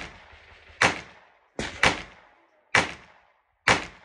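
Gunshots from other guns on the range, not the suppressed rifle in view: six sharp cracks roughly a second apart, two of them close together near the middle, each with a brief echoing tail.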